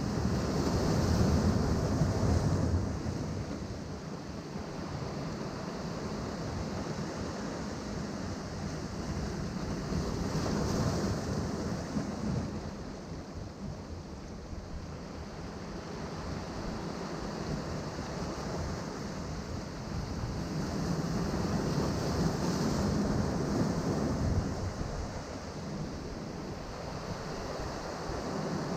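Sea surf breaking among rocks, a steady wash that swells louder as waves come in, near the start, about ten seconds in and again a little past twenty seconds, with some wind on the microphone.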